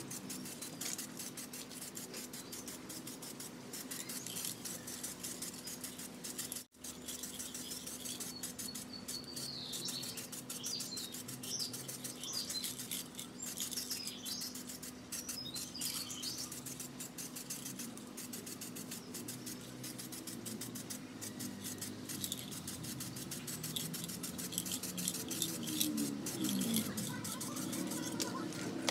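Aerosol spray-paint can hissing as candy yellow paint is sprayed onto a motorcycle wheel rim, with birds chirping in the middle.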